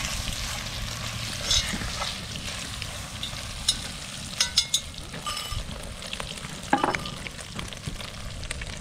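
Eggs, bacon and potatoes sizzling in a cast iron Dutch oven, with a fork scraping and clicking against the pot as the mix is stirred. Several of the clicks stand out over the steady sizzle.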